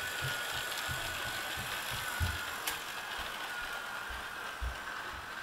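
Model train locomotive's electric motor whining steadily as it runs around its track, with irregular low thumps and one sharp click partway through.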